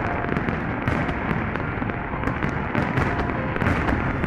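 A dense fireworks barrage: many shells bursting in quick succession over a constant bed of bangs and crackling, with no pause.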